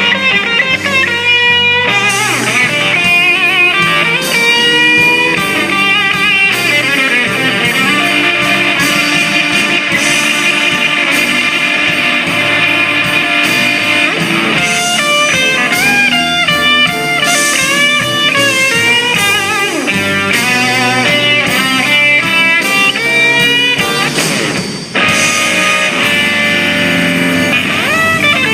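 Electric guitar playing a blues-rock lead, phrases full of bent notes over a steady accompaniment.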